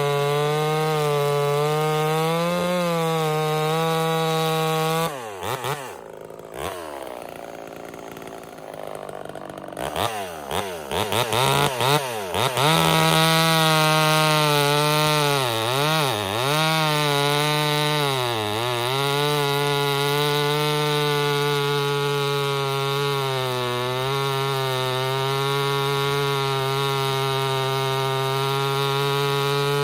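Ported Homelite VI-130 chainsaw running flat out in a cut, then falling back to idle about five seconds in. The throttle is blipped several times, and the saw returns to full throttle for the rest, its pitch dipping briefly now and then as it loads in the wood.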